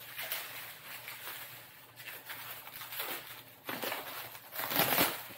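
Rustling and rubbing of packaging wrap as a spare drone battery is handled and unwrapped, with louder rustling near the end.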